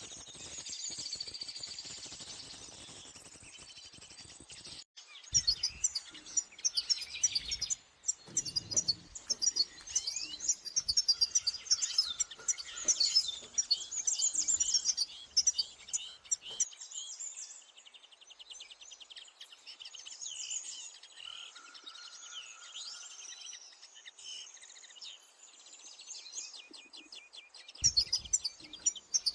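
A flock of small finches, European goldfinches and linnets, chirping and twittering in quick, high, overlapping calls and trills. The chirping breaks off briefly about five seconds in, thins out for a while past the middle, and grows busy again near the end.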